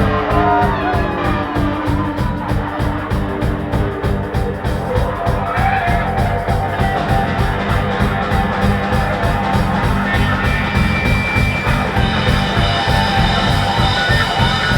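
Live rock band playing loud, with a steady driving drum beat under guitars, recorded on a phone.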